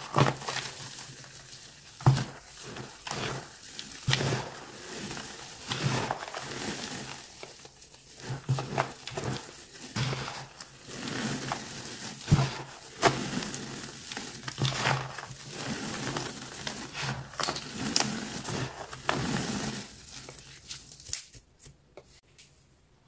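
Hands squeezing and crushing dry, crumbly grey powder and small chunks in a plastic tub: irregular gritty crunching and rustling with sharper crunches now and then. It dies down to faint brushing near the end.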